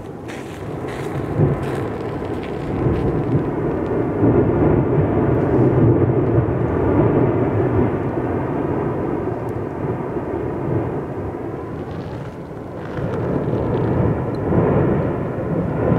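Lava fountaining from an erupting volcanic vent: a loud, continuous deep rumble like a distant jet, swelling and easing over several seconds, as gas and molten spatter are blasted out.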